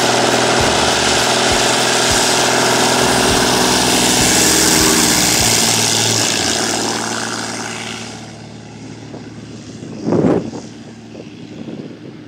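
Single-engine taildragger, a Stinson 108 or Cessna 170, at full takeoff power: engine and propeller running loud and steady as it rolls past, then fading as it climbs away from about seven seconds in. A brief thump about ten seconds in.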